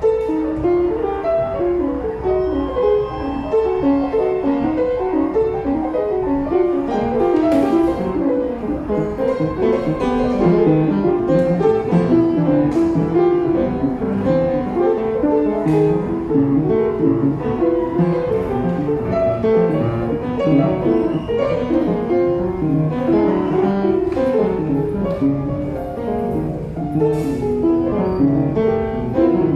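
Upright piano improvised with a fast, unbroken flow of notes, mostly in the middle register.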